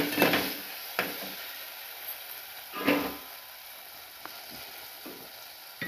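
Steel ladle stirring a frying tomato-onion masala in an aluminium pressure cooker, over a low sizzle. It knocks against the pot at the start and again about a second in, and scrapes round it near the middle.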